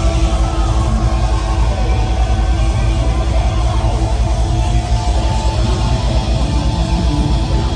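Heavy metal band playing live and loud, with distorted electric guitars over drums and bass.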